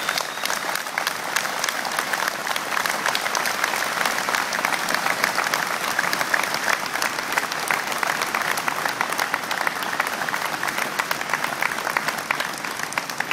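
Crowd applauding: many hands clapping in a dense, steady patter that swells up at the start and eases slightly near the end.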